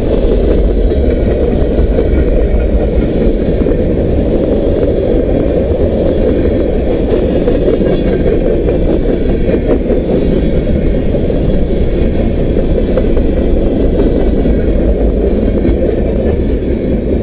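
Freight cars of a long train rolling past at about 32 mph, a steady rumble of steel wheels on rail.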